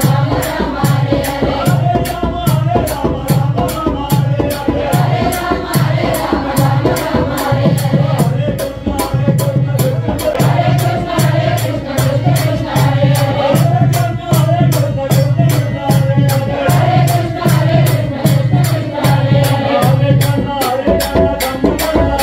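A Krishna bhajan, devotional song: a singing voice over a steady drum beat of about two strokes a second, with a rattle or small cymbals keeping time.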